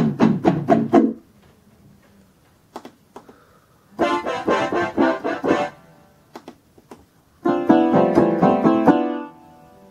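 Concertmate-1000 electronic keyboard playing quick runs of notes on three preset voices in turn. A rapid run on its percussion voice ends about a second in. After a pause comes a run on its distorted guitar voice, and near the end another run on its acoustic guitar voice. Faint clicks sound in the pauses.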